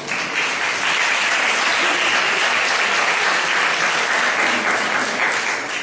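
Audience applauding, swelling at the start and dying away near the end.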